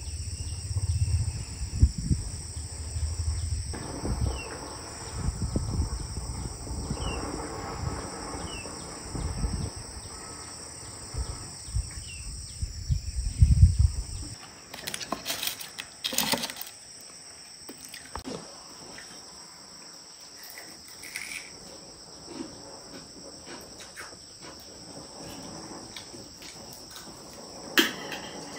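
Insects chirring in a steady, high, even drone throughout. Low knocks and handling noises fill the first half, then a few sharp clicks stand out, loudest about halfway through and near the end.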